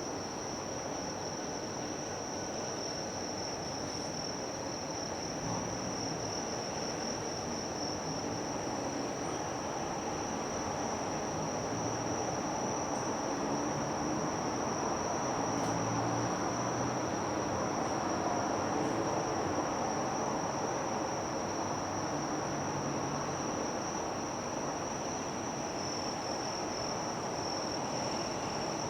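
Steady, unbroken high-pitched chirring of insects, over a low even rumble of harbour ambience.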